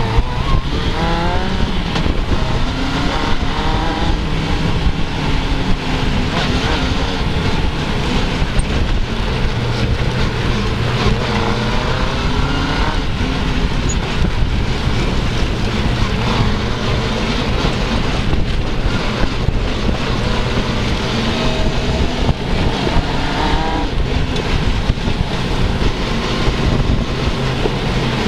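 Suzuki GSX-R600 inline-four motorcycle engine in an off-road buggy, driven hard and revving up and down, its pitch climbing several times as it accelerates. A steady rushing noise from wind and the rough ride runs underneath, picked up by a helmet-mounted camera.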